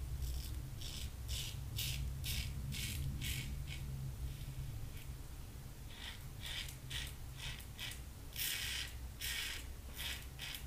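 Fine Accoutrements "Marvel" double-edge safety razor scraping through lathered stubble against the grain, a crisp rasp with each short stroke, about two to three strokes a second. The strokes pause for a couple of seconds midway.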